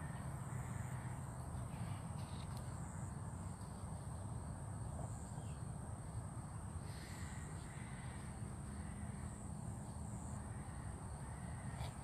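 Crows cawing a few times, the clearest calls about seven seconds in, over a steady low rumble and a continuous thin high hiss.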